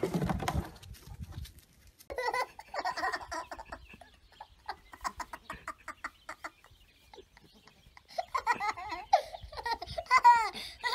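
A toddler laughing in repeated bursts of giggles, loudest near the end. There is a short burst of noise in the first second.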